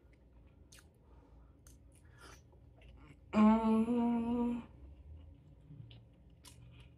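A woman hums a closed-mouth "mmm" while chewing, about a second long in two steady notes, the second slightly higher, a sign of relishing the food. Faint wet chewing clicks come before and after it.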